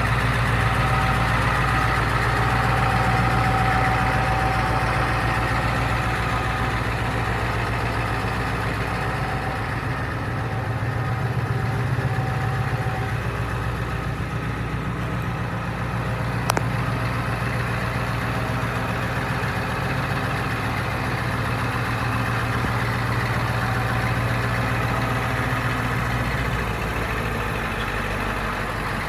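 Engine of a 1991 International 4600 dump truck idling steadily, with one sharp click about halfway through.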